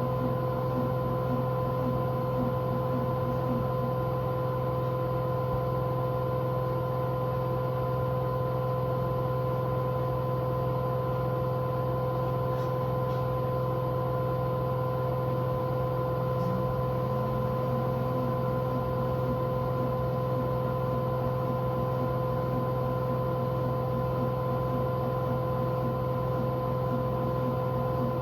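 Washing machine spinning its drum at maximum spin speed, a steady hum with a constant high whine.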